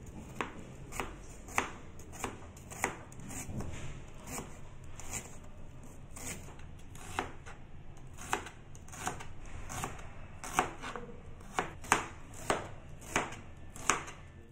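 Kitchen knife slicing a red onion on a plastic cutting board: a series of sharp knocks, about one or two a second, the loudest ones near the end.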